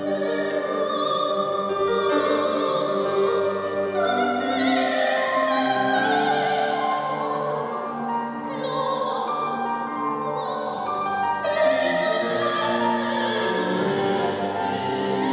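A soprano singing in classical style, her held notes wavering with vibrato, accompanied by a grand piano.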